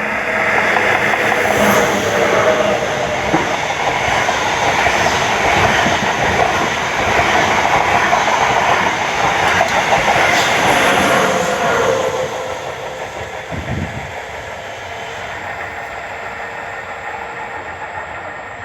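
A train passing close by: a loud, dense rolling rumble with a few wheel knocks over the rails, which dies down about twelve seconds in to a quieter steady rolling noise as it moves away.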